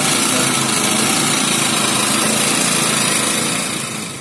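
Small portable generator set (Yanma YMG1500X) with its engine running steadily, a loud, even, buzzing hum. It fades down near the end.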